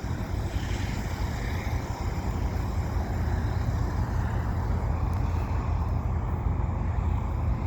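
Rear GE ET44AC diesel locomotive, pushing as distributed power at the tail of a double-stack container train, running steadily with a deep, even rumble as the train rolls away.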